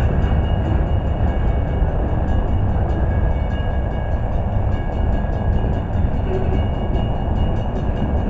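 Freight cars of a mixed freight train rolling past at a grade crossing: a steady, loud noise of steel wheels running over the rails.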